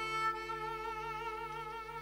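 Background music: a melody of long held notes with a wavering vibrato, over a steady low drone; the tune moves to new notes near the end.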